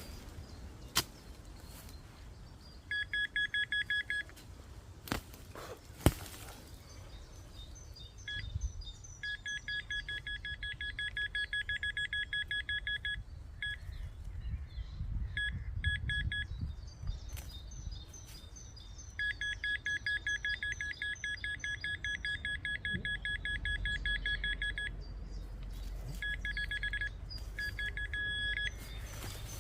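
Metal detector beeping in fast repeated pulses, in several bursts of a few seconds each, as it sounds over a buried metal target being dug out. A few sharp knocks, the loudest about six seconds in.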